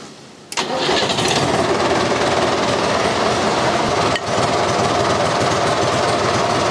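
David Brown 990 Selectamatic tractor's four-cylinder diesel engine starting: it catches about half a second in and then runs steadily.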